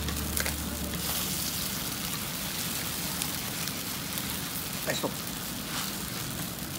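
Wet cabbage batter sizzling steadily on a hot iron teppan griddle, an even crackling hiss.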